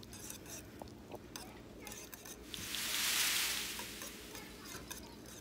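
A spoon stirring cream into potato soup in a slow cooker: faint clicks and scrapes, then a louder swishing noise that swells and fades over about a second and a half midway.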